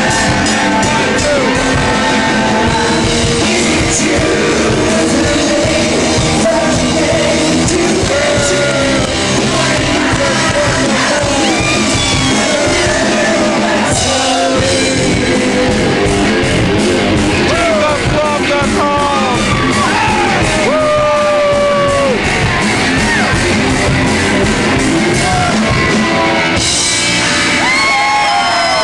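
Live rock band playing loud, with singing and yelling over the music.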